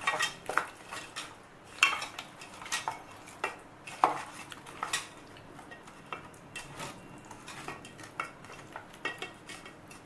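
Fried chicken pieces being mixed by hand into a yogurt and spice marinade in a stainless steel bowl: irregular clicks and knocks of the pieces and fingers against the bowl's metal sides, the loudest about two and four seconds in.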